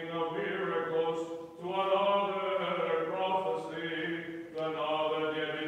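A man's voice singing Byzantine liturgical chant in long, held phrases, with brief breaths about a second and a half in and again near the end.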